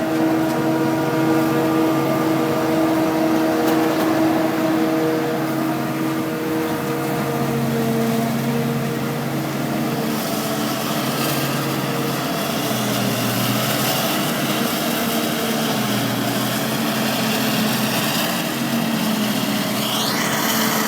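Tractor engine running, its note shifting a few times as the revs change, with a short rising whine near the end.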